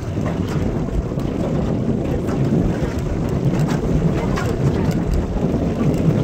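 Wind buffeting the microphone over the wash of choppy water close by, with scattered small splashes and knocks.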